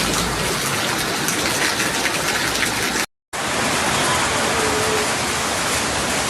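Heavy torrential rain as a steady, dense hiss. It cuts out for a moment about halfway through, then carries on.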